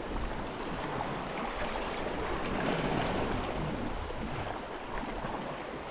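Sea water washing against the shore rocks, a steady rushing noise with no distinct strokes.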